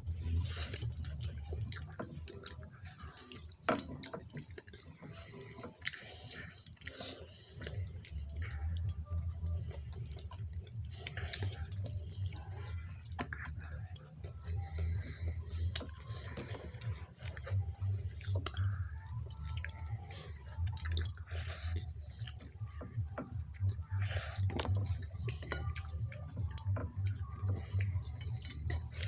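Close-up wet eating sounds: irregular smacks, squelches and chewing of soft, watery khichuri and potato fry. A low steady hum sits underneath and grows louder about eight seconds in.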